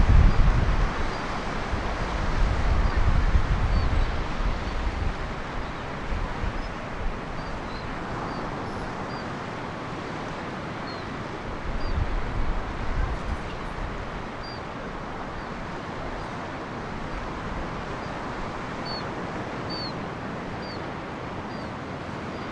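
Ocean surf breaking on the beach and rock shelf, a steady wash, with wind buffeting the microphone in gusts at the start and again about twelve seconds in. Short high bird chirps sound now and then.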